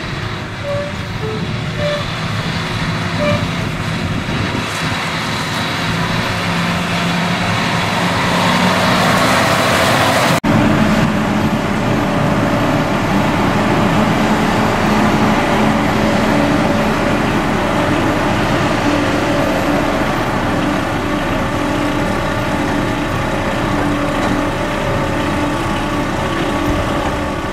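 Heavy diesel harvest machinery running steadily, growing louder over the first ten seconds; a sudden change about ten seconds in switches to a different steady engine hum.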